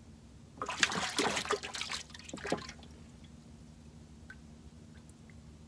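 Water splashing and dripping in a dense burst of about two seconds, followed by a few faint single drips.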